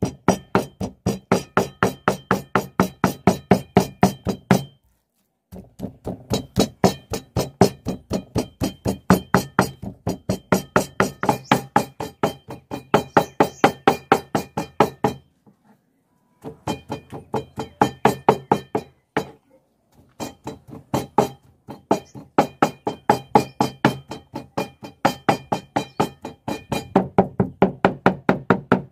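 A knife chopping raw chicken on a wooden chopping board in quick, steady strokes, several a second, with a few short pauses: meat being minced by hand.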